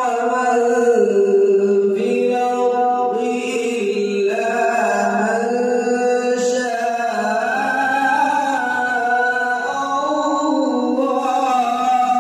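A man's voice reciting the Quran in melodic tilawat style, drawing out long held notes that slide slowly from pitch to pitch with hardly a break.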